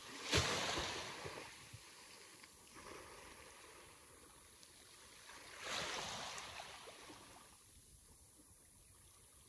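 Sea waves breaking: one wave crashes about half a second in, the loudest sound, and a softer one follows about five seconds later, each fading out in a washing hiss.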